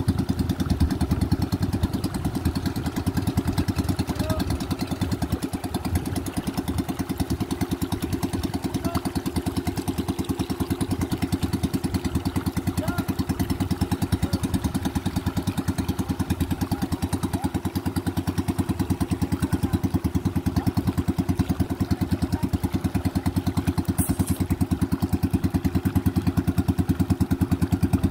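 Small outrigger pumpboat's engine running steadily, a fast even chugging that holds the same speed throughout.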